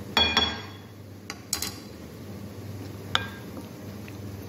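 Metal spoon clinking against a glass bowl while mixing cornflour into raw chicken pieces. There is a cluster of ringing clinks at the start, a few light taps after about a second, and one more ringing clink about three seconds in.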